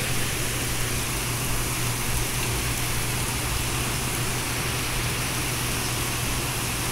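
Steady heavy rain falling on leafy trees, an even hiss with a low steady hum underneath.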